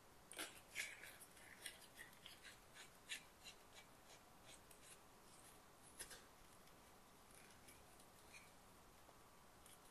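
Faint, scattered clicks and light rubbing from hands handling a small plastic Ulanzi LED video light, with about a dozen soft ticks in the first six seconds and a few more later.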